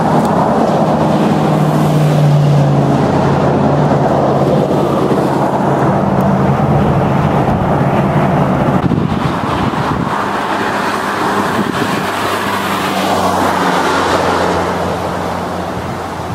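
Car driving at highway speed: steady road and tyre noise with a low engine hum, heard from the moving car.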